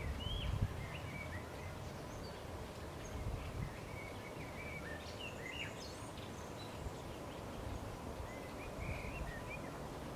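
Faint low rumble of a model freight train's grain hopper cars rolling on their track, swelling at the start, about three seconds in and near the end. Scattered short, high chirps run over it.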